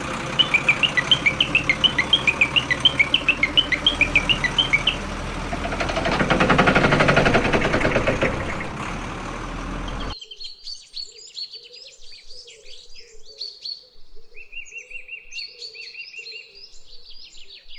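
Gravel and stones pouring out of a toy tipper truck's raised dump bed, swelling to its loudest about seven seconds in, over a steady noise, with a fast run of high chirps during the first five seconds. It cuts off suddenly about ten seconds in, and birds chirp and sing for the rest.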